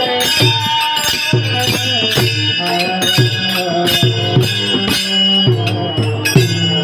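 Varkari kirtan music: a steady rhythm of drum strokes, about two a second, with ringing hand cymbals and sustained held notes underneath.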